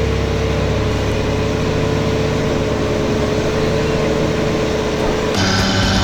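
Off-road 4x4 vehicle's engine running steadily with a thin, slightly falling whine over a low rumble. About five seconds in, music cuts in abruptly.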